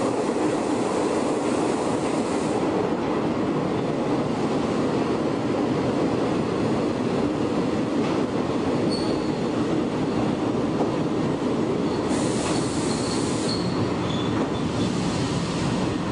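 Shin-Keisei 100-series electric train with nose-suspended traction motors running, heard from the cab: a steady heavy drone of motors, gears and wheels on the rails. Brief high wheel squeals come on the curve about halfway through and again a few seconds later.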